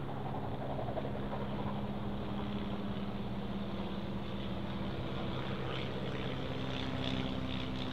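De Havilland Tiger Moth biplane flying overhead: a steady engine drone whose pitch shifts slightly about halfway through and again near the end.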